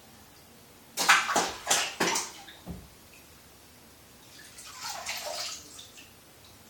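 Bathwater in a tub splashing: a quick run of four or five loud splashes about a second in, then a softer patch of trickling, sloshing water around five seconds in.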